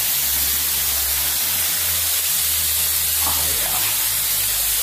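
Runoff from the mountain top pouring down the rock face over a tunnel mouth as a thin waterfall: a steady splashing hiss of falling water.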